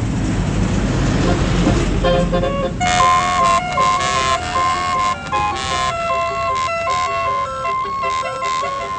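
Tour bus's Basuri telolet horn playing a melody of held, stepping notes, starting about two seconds in after a low engine rumble.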